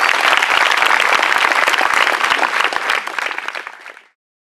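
Audience applauding, dense clapping that fades away and stops about four seconds in.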